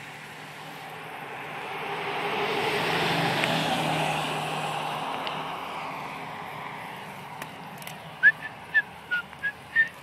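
A motor vehicle passing by, its noise swelling to a peak a few seconds in and fading away, then about six short high chirps near the end.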